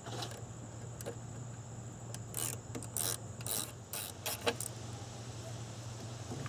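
A wrench loosening the clamp nut on a car's negative battery terminal to disconnect the battery: a handful of short metallic clicks and scrapes, irregularly spaced, in the middle of the stretch.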